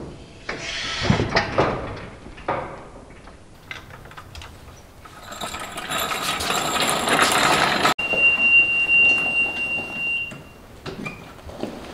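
A hydraulic floor jack is let down and worked out from under the golf cart: stretches of rattling and scraping noise on concrete. Then a steady high whine for about two seconds as the electric EZGO golf cart drives up.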